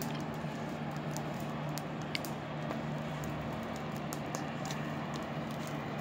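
Outdoor ambience: a steady low hum under faint, scattered ticks and rustles, with one short high chirp about two seconds in.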